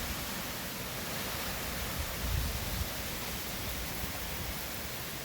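Hurricane wind and rain: a steady rushing hiss, with gusts buffeting the microphone, strongest a little over two seconds in.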